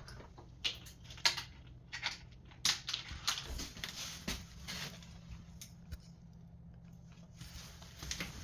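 Footsteps and scattered knocks on a hard floor, irregular and a few a second, over a low steady hum; they thin out past the middle and pick up again near the end.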